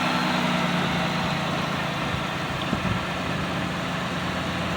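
Pontiac Bonneville's 3.8-litre V6 idling steadily and smoothly after a cylinder-head and gasket replacement.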